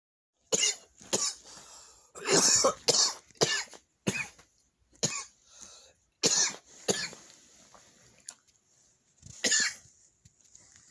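A person's dry cough: about a dozen short, sharp coughs in quick bouts, then a pause and one more cough near the end.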